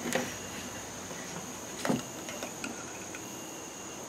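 Screw cap being worked loose and twisted off a rectangular metal can: a few sharp clicks and scrapes, the sharpest about two seconds in, then light ticks as it comes free.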